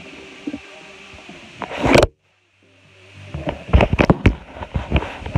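Music playing through a phone's microphone, then a loud rustling surge as the phone is handled. All sound cuts out for about half a second, then comes a run of sharp knocks and rubbing from the phone being moved about.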